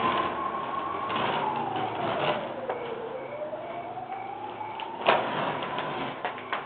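Painter's tape being peeled off a painted wall, with short crackling rips. Under the rips runs a thin high tone that slowly sinks in pitch and climbs back again.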